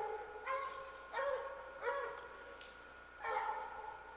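Treeing Walker hound barking: four short barks with pauses between them.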